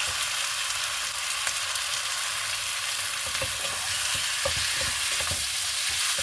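Marinated chicken pieces with onion and ginger sizzling in a hot frying pan: a steady frying hiss, with scattered short scrapes and knocks of a utensil stirring the pan, busiest in the second half.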